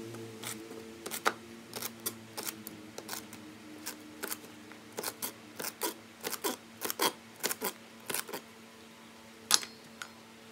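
Kitchen knife chopping celery stalks on a plastic cutting board: a run of sharp taps, quickest through the middle stretch, with a few more near the end.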